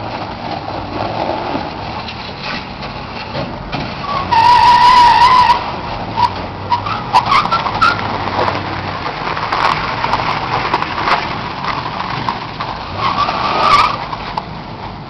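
Pickup truck engine under hard load climbing a steep concrete slope, with tires scrabbling. A loud tire squeal comes about four seconds in and again near the end.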